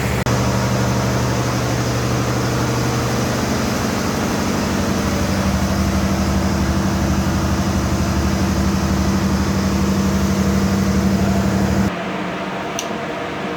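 Steady, loud hum of a running machine with a low, even drone. It drops suddenly to a quieter hum near the end.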